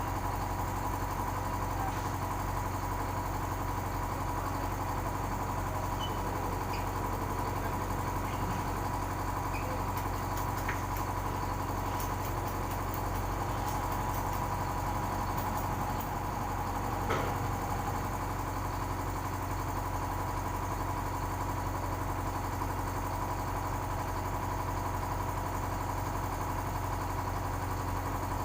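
A heavy-equipment engine idles steadily with a low, even hum, and a brief knock comes once partway through.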